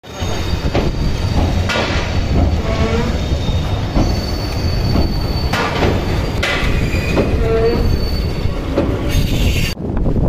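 Passenger train coaches running over a railway bridge: a steady rumble of wheels on rails, with wheel squeals rising and fading several times. The sound changes abruptly shortly before the end.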